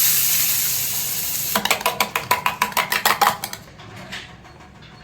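Kitchen sounds: a loud hiss, then about two seconds of quick metallic clinks, around seven a second, like a utensil striking a steel pot or bowl, which then fade away.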